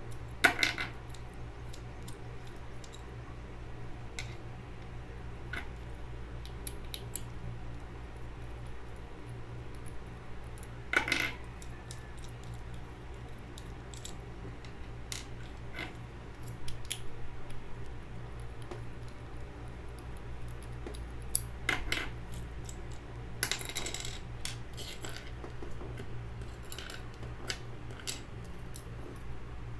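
Scattered sharp clicks and clinks of small plastic speedcube parts being handled as a Valk 3's core is taken apart, with a steady low hum underneath.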